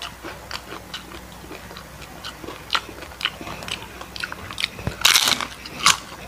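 Close-up crunching and chewing of crispy deep-fried chicken skin, a run of sharp crackles, with a louder crackling bite into a fresh piece about five seconds in.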